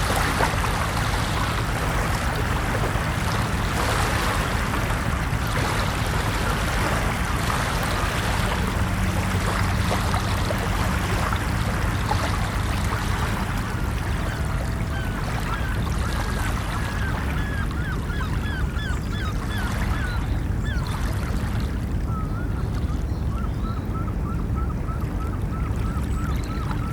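Ocean surf rushing steadily. From about halfway through, a bird gives a rapid series of short, high calls, several a second, over the water.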